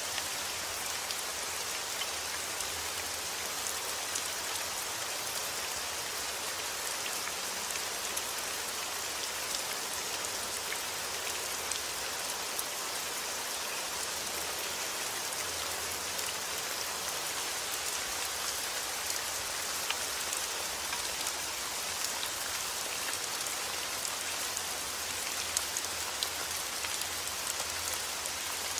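Heavy rain falling steadily, a dense even hiss with the patter of individual drops striking surfaces.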